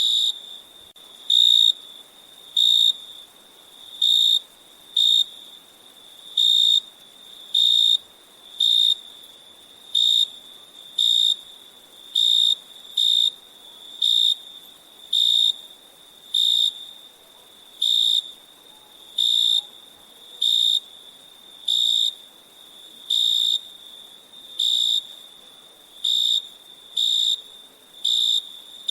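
Crickets chirping at night: a loud, high chirp about every second and a quarter, evenly paced, over a fainter steady high trill.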